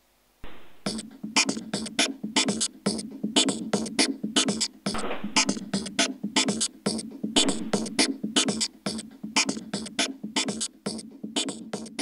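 Background music: a fast percussive beat in the manner of a drum machine or beatboxing, with a steady low note beneath, starting abruptly about half a second in.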